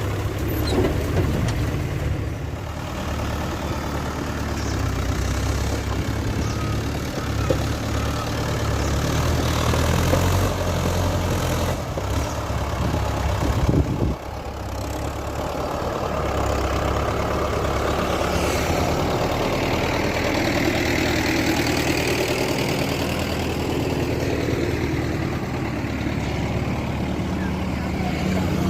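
Diesel engines of a backhoe loader and farm tractors running steadily, with a couple of brief knocks about halfway through.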